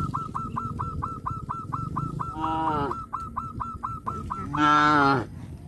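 Animal calls: a fast, even run of short chirping calls, about five a second. Two louder, drawn-out honking calls fall slightly in pitch, one about halfway through and the loudest near the end.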